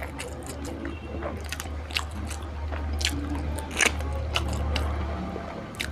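Close-miked chewing and biting of curried chicken feet: wet mouth sounds with irregular sharp crunches, the loudest a few seconds in. A steady low hum runs underneath.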